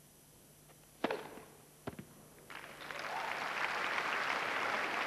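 A tennis ball struck hard on the serve about a second in, the loudest sound, followed under a second later by a second sharp crack of the ball. Crowd applause then rises from about halfway and keeps going.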